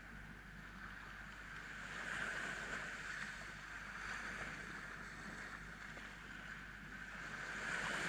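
Small sea waves breaking and washing up a sandy beach, a steady rushing that swells louder about two seconds in and again near the end.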